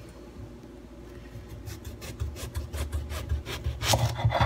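Kitchen knife sawing back and forth through the tough stem end of an eggplant on a wooden cutting board: a run of short rasping strokes starting about a second and a half in, loudest near the end.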